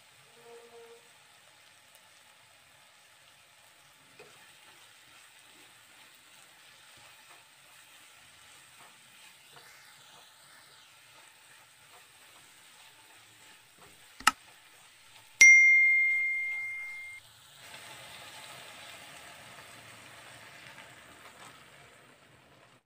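Onion-tomato masala sizzling faintly in a pan as it is stirred. Partway through, a sharp click is followed by a bright bell ding that rings out for under two seconds, the click-and-bell effect of a subscribe-button animation. The frying sizzle is louder in the last few seconds.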